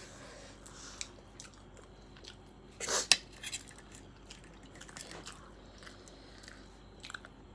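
Close-up eating sounds: chewing and small clicks of a spoon or plate, with one louder bite about three seconds in.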